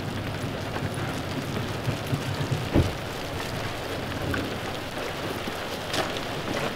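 Steady rain falling, with a few sharp knocks over it, the loudest just under three seconds in.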